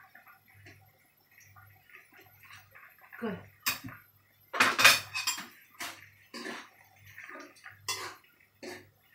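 Metal kitchen utensils clattering: a spoon and ladle knock and scrape against plates and a metal frying pan of curry in a run of clinks. The loudest clatter comes about five seconds in.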